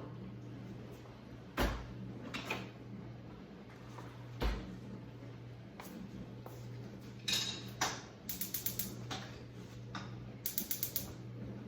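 Kitchen handling sounds over a steady low hum: two heavy knocks, scattered clicks, and two quick runs of sharp rapid ticks near the end.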